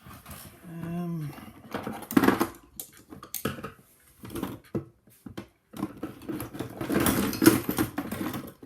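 Metal tools clinking, scraping and rattling against a hardened-steel padlock as it is worked on, busiest in a dense stretch near the end. A short falling hum of a voice comes about a second in.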